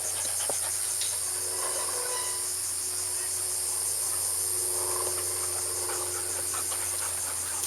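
Insects chirping in a steady, high-pitched chorus with a fast, even pulse.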